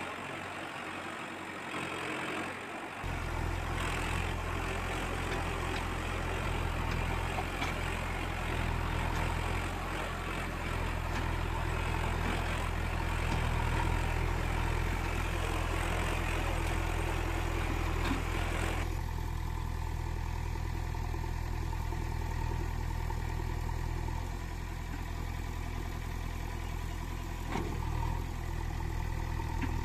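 An engine running steadily, like a tractor's diesel idling. It starts suddenly about three seconds in, and its upper hiss thins out abruptly a little past halfway.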